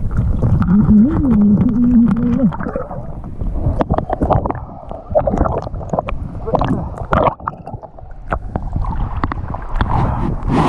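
Water sloshing and splashing as a snorkeler's camera and gloved hand come up through the lake surface, with many short sharp splashes and drips. A muffled voice is heard through the water in the first two seconds or so.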